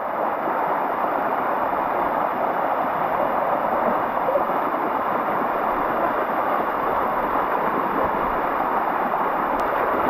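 Shallow waterfall water rushing steadily down a limestone cascade and splashing around a person lying in the flow, close to the microphone.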